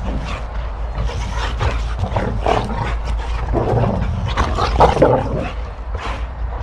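Two boxer dogs growling at each other in rough play-fighting, in irregular bursts with the loudest a little before the end.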